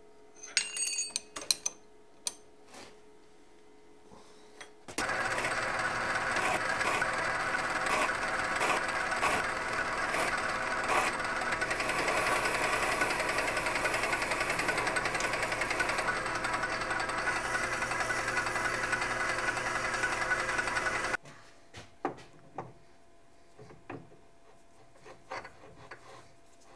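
A few light metal clicks, then a Logan metal lathe running and cutting the threaded spindle adapter for about sixteen seconds, starting and stopping abruptly. After it stops come scattered small clicks and rubbing of metal as a three-jaw chuck is screwed onto the adapter by hand.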